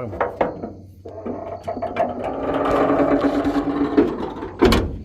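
A steady, pitched mechanical rasp lasting about three seconds, followed by a heavy thump near the end.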